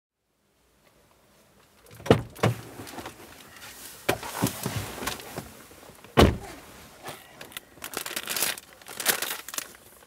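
A potato chip packet crinkling and rustling as a hand rummages in it, with chips crunching, starting about two seconds in. Two sharp thumps, about two and six seconds in, are the loudest sounds.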